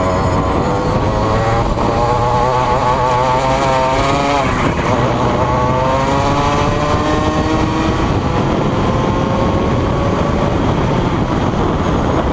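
Rotax Max 125cc two-stroke kart engine heard close up from on board, revving up, dropping sharply about four seconds in, then climbing steadily in pitch again before falling away near the end.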